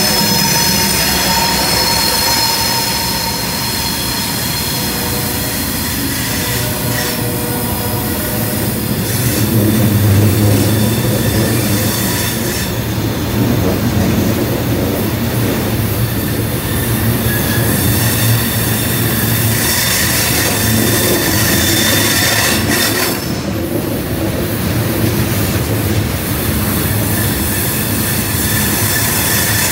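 Providence and Worcester freight train rolling past close by: the tail of the red diesel locomotive goes by, then a long line of covered hopper cars. Under a steady low rumble, the steel wheels squeal on the rails in high, held tones that come and go.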